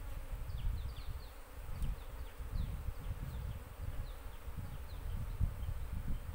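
Asian honey bees (Apis cerana) buzzing around combs that are being handled out of their hive, an uneven, fluctuating hum.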